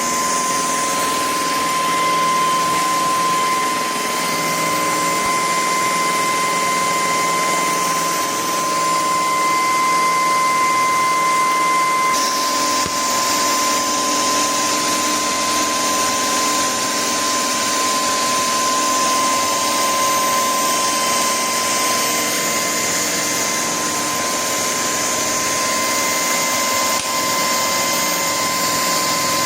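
Shark PowerPro cordless stick vacuum running steadily, a motor whine over airflow hiss. About twelve seconds in, the sound shifts and becomes more hissy.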